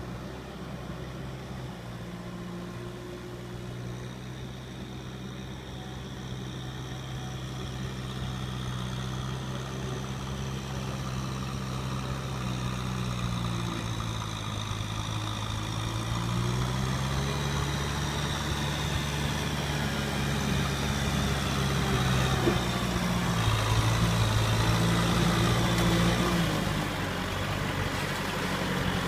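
Kubota M6040 SU tractor's diesel engine running, growing steadily louder, its pitch dipping and rising a few times as the engine speed changes.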